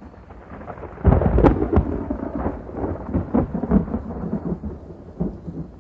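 Thunder sound effect: a sudden crack and boom about a second in, followed by a long rolling rumble with crackles that slowly fades.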